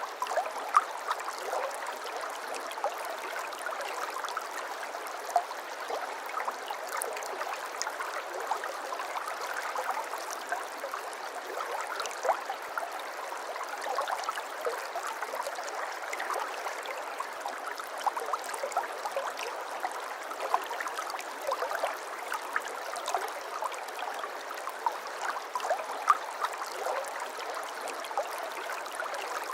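Shallow stream water flowing and trickling steadily, with many small splashes and plinks.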